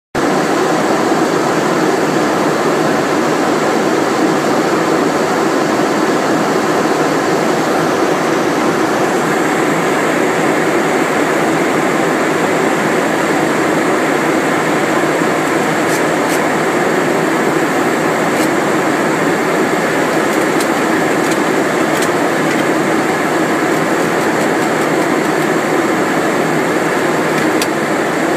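Steady rushing noise on a Boeing 737 flight deck in flight: air streaming past the airframe and the air-conditioning, with a few faint clicks about halfway through.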